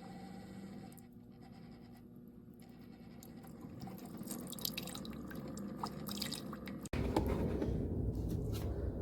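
Keurig coffee maker brewing, coffee streaming and dripping into a mug with small ticks, growing louder as it goes. It is broken off abruptly about seven seconds in, and a louder stretch of the same kind of sound follows.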